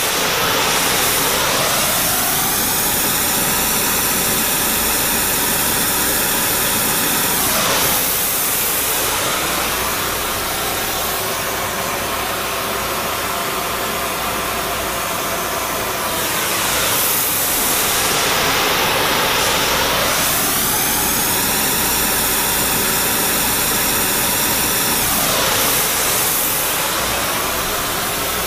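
Powder flame-spray torch hissing steadily as it sprays the buildup coat onto a lathe-turned spindle's worn seal journal, rebuilding the journal. The hiss shifts slowly in tone every eight seconds or so.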